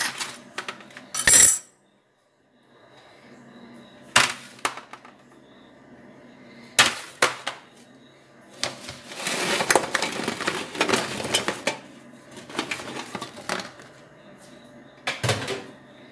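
Baked cornmeal cookies clattering and scraping against a metal baking tray as they are gathered up by hand: scattered sharp knocks, then a longer run of rattling clatter partway through.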